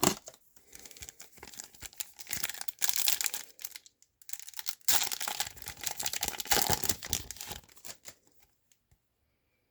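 A trading card pack wrapper being torn open and crinkled, in two spells of rustling tearing, then quiet.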